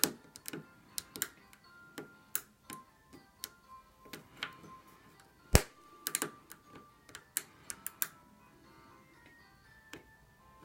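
Irregular metallic clicks and ticks of a hook pick and tension wrench working the wafers of a camper-van wafer door lock, the sharpest click about halfway through, with fewer clicks in the last couple of seconds; faint background music underneath.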